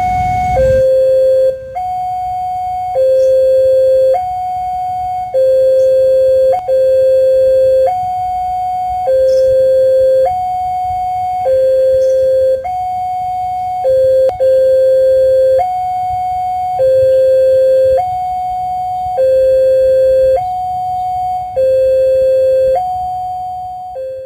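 Two-tone hi-lo siren alternating steadily between a higher and a lower note, about one second on each, cutting off just before the end.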